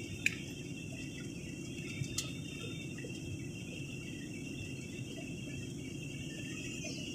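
Steady airliner cabin noise on the approach to landing: a low rumble of engines and airflow with a thin, steady high whine above it. Two short clicks come near the start and about two seconds in.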